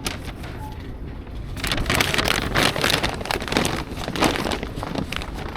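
A bag crinkling and rustling as it is handled, starting about a second and a half in and lasting about three seconds, over a steady low background hum.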